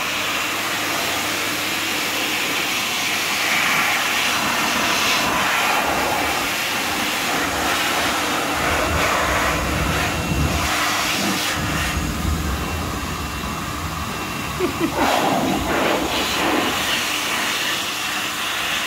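Waterblazer Paw-R high-velocity dog dryer running, blowing a steady, loud rush of air with a faint motor whine under it. The rush swells and dips in places as the nozzle moves through the puppy's coat.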